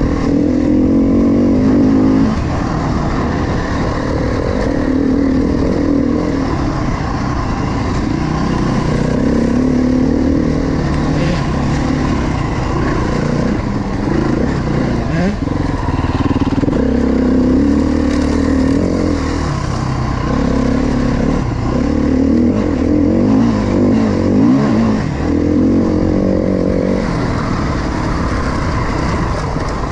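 Dirt bike engine ridden along a trail, heard from on the bike, its pitch rising and falling every few seconds as the throttle is opened and closed.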